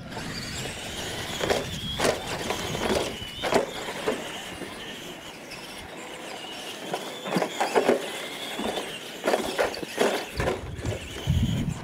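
Electric radio-controlled monster trucks racing on dirt: a steady high motor-and-gear whine, with scattered knocks and crunches from the tyres and chassis over the dirt.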